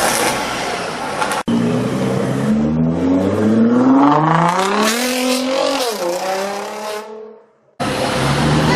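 Koenigsegg Agera's twin-turbo V8 accelerating hard, its pitch climbing steeply through the revs with a quick dip and recovery at a gear change, then fading as the car pulls away. Near the end a steadier engine note starts abruptly.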